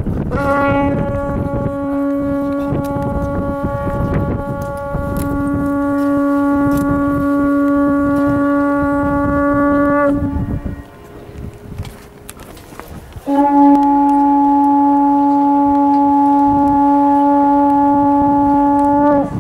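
The Ripon Wakeman's curved horn blown in two long, steady single-note blasts, the first about ten seconds long and the second, after a short pause, about six. This is the nightly horn call that sets the watch, sounded at a corner of the market-place obelisk.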